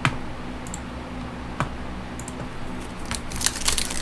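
Trading cards and their pack being handled by hand: a few light clicks and taps, then from about three seconds in a dense, growing crinkling rustle.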